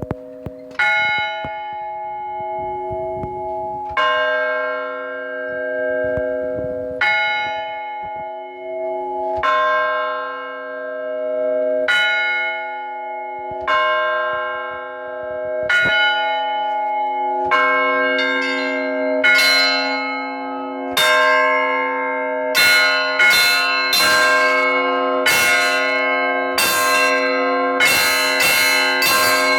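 Orthodox church bells rung by hand by a bell ringer in the belfry. Slow single strokes on the large bell come every two to three seconds over the lingering hum of the bells. From about halfway, the smaller bells join in a quicker, denser peal, several strikes a second.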